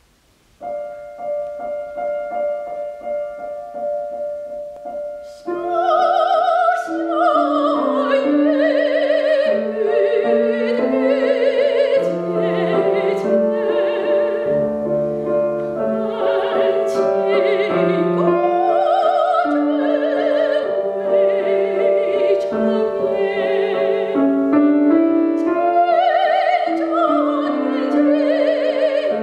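Grand piano plays a short introduction, then a soprano voice enters about five seconds in, singing a Chinese art song in classical style with vibrato over the piano accompaniment.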